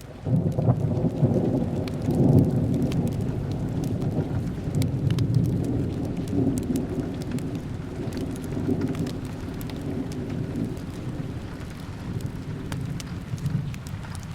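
Rain falling steadily while a long roll of thunder breaks in suddenly and slowly fades away. Scattered sharp ticks sound over the rain.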